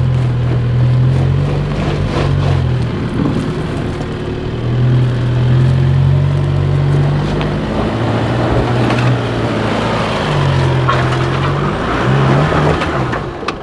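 Four-wheel drive's engine working hard up a steep rutted climb, its revs rising and falling as it pulls, with a few knocks over the ruts.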